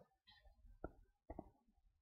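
Faint handling noise from hands working inside an open desktop PC case, moving cables and parts around the drive bay, with two short sharp clicks, one a little under a second in and another about half a second later.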